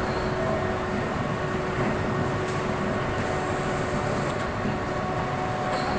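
Steady industrial machine noise from a furnace charging pusher installation: a constant mechanical drone with a steady hum that holds one pitch.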